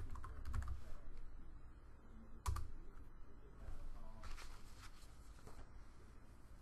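Typing on a computer keyboard: a quick run of keystrokes through the first second, then one sharper key press or click about two and a half seconds in, and a few fainter clicks around four to five seconds.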